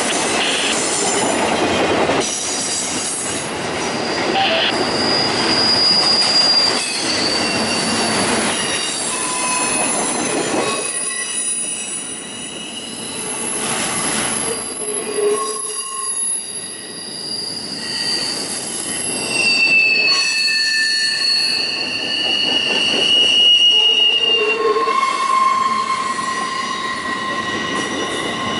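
Rail cars rolling past with their wheel flanges squealing against the rails: several high squeals rise, shift and fade over a steady rolling rumble.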